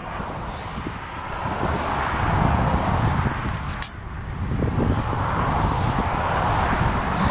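Steady rush of wind and road noise while riding a bicycle, swelling twice, with a single sharp click about four seconds in.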